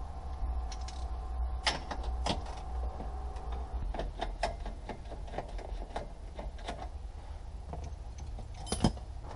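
Scattered clicks and knocks of hands and tools working on plastic and metal parts in a car's stripped-out dashboard area, over a steady low hum, with a sharp knock near the end.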